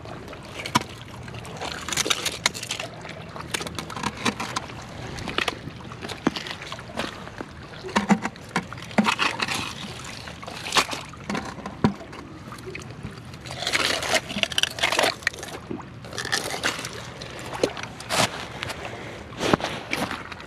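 Footsteps in rubber boots through wet mud and oyster shells: uneven squelching and crunching steps, with clusters of shell crunches every second or two.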